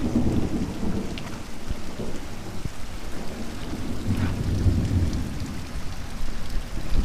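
Heavy rain pouring down in a thunderstorm, with thunder rumbling low at the start and again about four seconds in.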